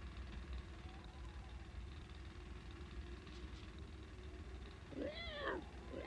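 Faint room tone with a low hum, then, about five seconds in, one short meow-like squealing call that rises and falls in pitch.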